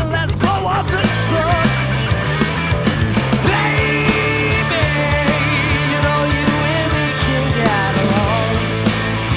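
Live rock band playing an instrumental passage: a lead line of held, wavering notes over steady bass and drums.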